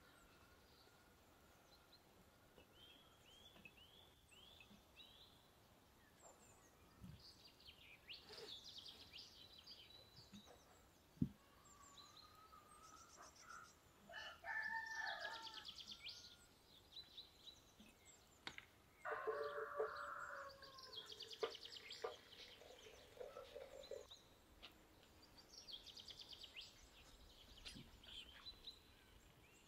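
A rooster crowing twice, once about fourteen seconds in and again, louder, near twenty seconds, with small birds chirping on and off. There is a single sharp knock about eleven seconds in.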